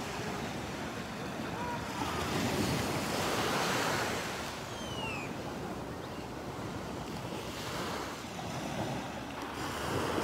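Small waves breaking and washing up on a sandy beach, the surf swelling a couple of seconds in and again near the end, with wind buffeting the microphone. A brief faint falling whistle is heard near the middle.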